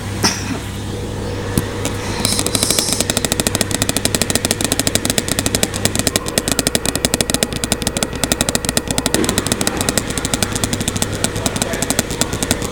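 LG washing machine in its spin cycle: a steady hum, then from about two seconds in a fast, even rattling of about ten knocks a second as the drum spins.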